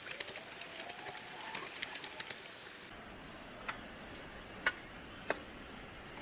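Hand-carving a wooden spoon: a blade takes a quick run of small cutting clicks for about three seconds, then three single cuts spaced about a second apart.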